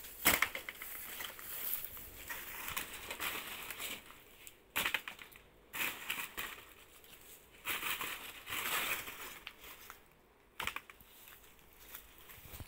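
Dry, papery banana leaves crunching and crinkling in irregular bursts while a banana sucker is dug out from the base of a red banana clump.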